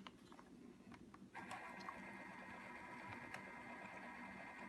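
A DYMO LabelManager 160 label maker printing a label. After a few faint clicks, its thermal print motor starts about a second in and whirs steadily as the tape feeds out.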